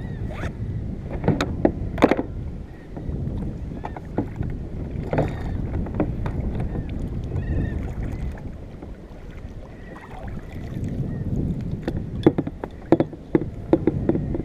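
Wind and water rumble on a fishing kayak at sea, broken by scattered sharp knocks and clatters of gear being handled on board, a cluster early and another near the end.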